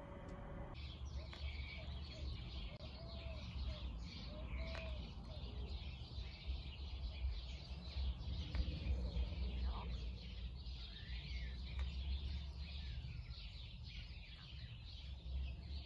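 Many small birds chirping busily and without a break, a flock's chatter. A few soft, low calls from a hen come through in the first five seconds, over a low steady rumble.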